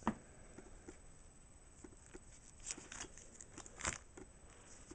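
Pokémon trading cards being handled on a tabletop: soft rustling and light taps, with a sharp tap right at the start and a louder one about four seconds in.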